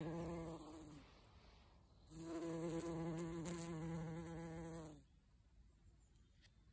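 A bumblebee buzzing in flight, a low steady hum of its wings. The hum is loud at the start and fades after about a second. It returns loudly about two seconds in and stops abruptly about five seconds in.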